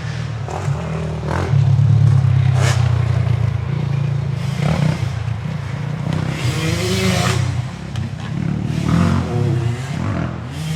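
Motorcycle engine running and revving, loudest about two seconds in, with its pitch rising and falling again in the second half.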